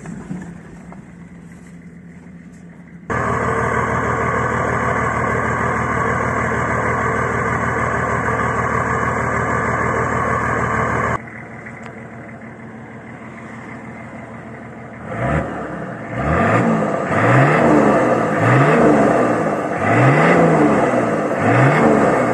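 Nissan Patrol TD42T turbo-diesel straight-six through a 3-inch straight-through exhaust. First a quieter run, then a loud steady stretch at constant revs that starts and stops abruptly. Then it idles, and from about two-thirds of the way in it is revved over and over, each blip rising and falling in pitch about once a second.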